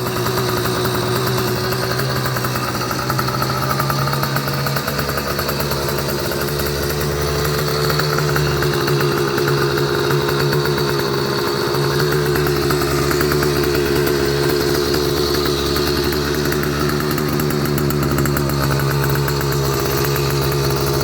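80cc two-stroke motorized bicycle engine running steadily, its pitch wavering slightly.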